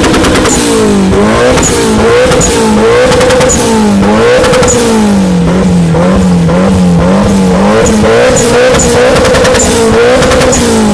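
Stock Mitsubishi Lancer Evolution VIII's turbocharged 2.0-litre 4G63 inline-four revved hard and held near the top. The pitch repeatedly dips and springs back as it bounces off the rev limiter.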